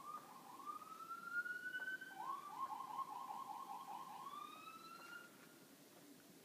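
Faint emergency-vehicle siren, switching between a fast repeated yelp and a slower rising wail.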